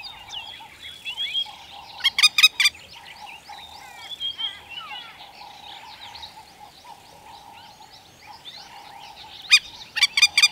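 African wattled lapwing giving loud, sharp, repeated calls: a quick run of four about two seconds in and another run near the end. Between them, fainter short chirps of other birds over a steady background chorus.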